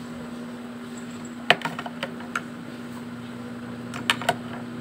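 Plastic makeup items and pencils clicking and tapping as they are set into a plastic organizer caddy: one sharp click about a second and a half in, a few lighter taps after it, and two more clicks near the end, over a steady low hum.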